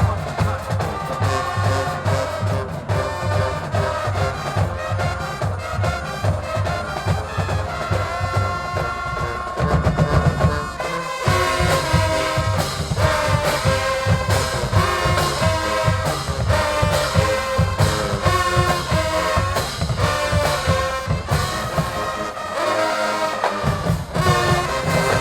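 Marching band playing a brass tune, trombones and trumpets over a steady bass-drum beat, with a brief break about eleven seconds in.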